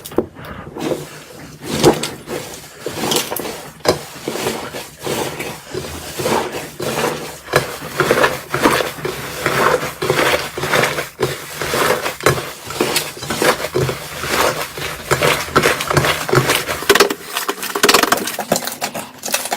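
Slime being squeezed and poked by hand: a fast, irregular run of sticky clicks and pops that stops a couple of seconds before the end.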